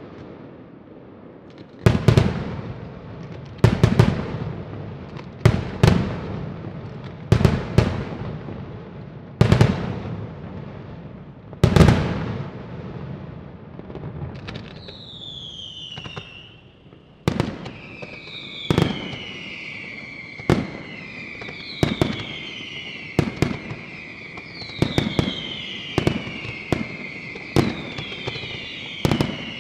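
Daytime fireworks display: loud aerial shell bangs about every two seconds, each followed by a short crackle and echo. About halfway through, whistling fireworks join in, with falling whistles over a steady high whistle while the bangs continue.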